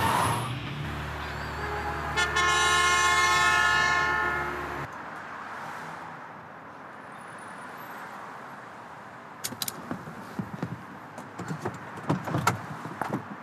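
A car horn held for about four seconds, starting about a second in and cutting off suddenly. A few seconds later come a scatter of sharp clicks and knocks.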